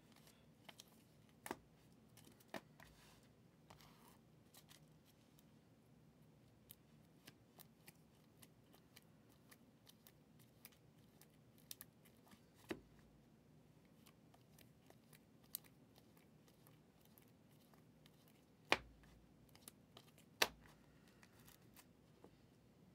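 Near silence with faint, scattered clicks and rustles of trading cards in plastic sleeves and top loaders being handled and swapped. Near the end come two sharper knocks about a second and a half apart.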